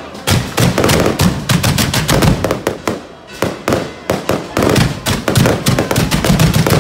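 Firecrackers going off in a dense, irregular crackle of sharp bangs, many a second, easing briefly about three seconds in.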